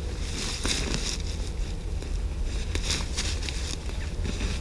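Rustling and crinkling of a bivy bag and sleeping bag being handled and pressed flat on leaf litter, in short irregular crackles over a steady low background rumble.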